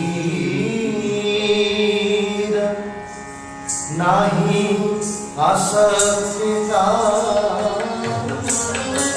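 Indian classical music for Odissi dance: a voice singing over instruments, dropping quieter about three seconds in before the singing comes back. Drum strokes come in near the end.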